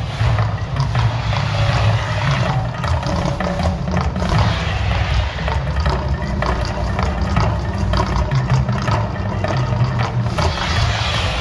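The Mirage volcano show erupting: a steady loud rushing of its water jets and gas flames over a deep, continuous rumble.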